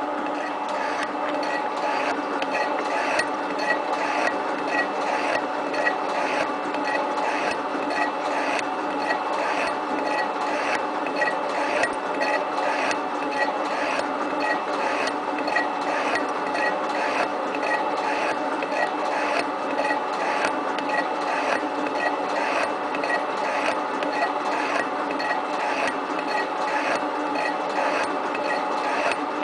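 7305T metal-shaping machine (shaper) running and planing metal: a steady machine hum with a regular scrape and click about one and a half times a second as the ram strokes back and forth.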